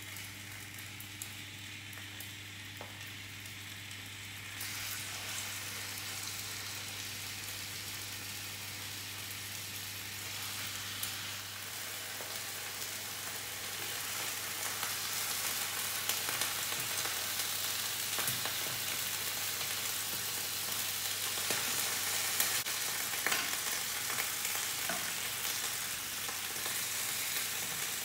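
Chicken pieces searing in a lightly oiled non-stick frying pan on high heat: a steady sizzle that grows louder about five seconds in and keeps building as the pan heats, with occasional clicks of the utensil turning the pieces.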